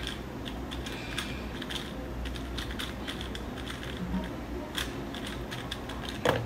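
A 3x3 speed cube turned rapidly by hand during a timed solve: a fast, irregular run of small plastic clicks and clacks, with one louder clack near the end.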